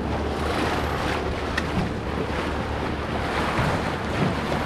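Wind buffeting the microphone over the steady rush and splash of water along the hull of a Flying Dutchman dinghy sailing fast under spinnaker.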